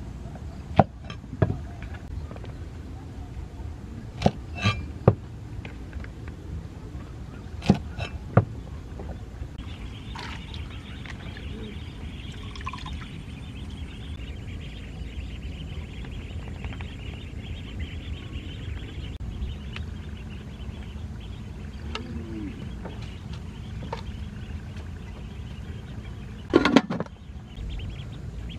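Cleaver chopping oyster mushrooms on a wooden chopping block: seven sharp chops, singly and in pairs, over the first eight seconds. Then about nine seconds of water sloshing as the mushrooms are washed by hand in a basin, and one loud short knock near the end.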